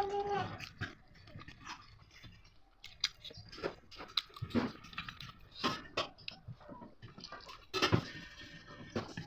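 Close-up chewing and crunching of fried bird, irregular crisp bites and clicks as the fried meat and small bones are chewed. A short, steady pitched cry, like a pet's, ends just after the start.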